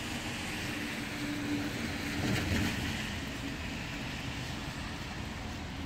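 Steady hiss of rain and tyres on a wet street, with one vehicle passing on the wet road and swelling loudest about two and a half seconds in.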